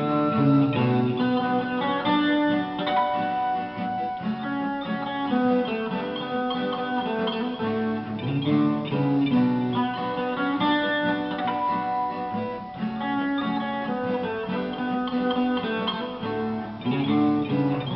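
Instrumental break of a sung ballad: guitar playing a melody over chords, with no vocals.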